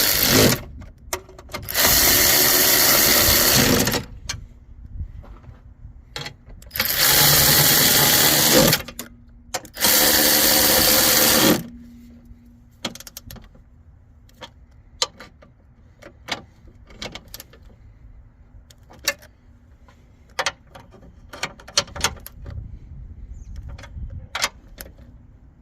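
A power drill/driver runs fasteners down in several bursts of a few seconds each, its motor whirring steadily in each run. After that come scattered light clicks and knocks of parts being handled.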